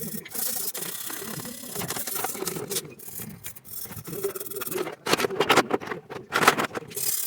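Irregular rubbing and scraping, with louder rasping strokes about five seconds in and again near the end.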